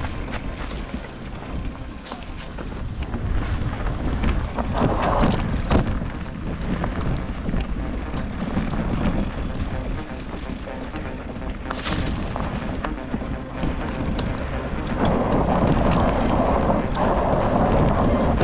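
Mountain bike riding down a rough dirt trail: wind rumbles on the microphone, tyres crunch over dirt and stones, and the bike knocks and rattles on the bumps. The tyre noise grows louder and steadier near the end.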